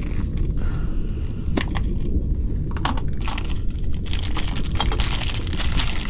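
Hard plastic surprise-egg capsule being twisted apart, with a few sharp clicks, then a clear plastic bag of puzzle pieces crinkling as it is handled from about four seconds in.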